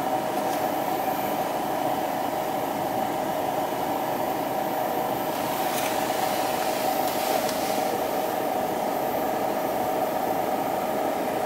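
Steady hum and air noise inside a car's cabin, with a few even tones in the middle range and no change through the stretch.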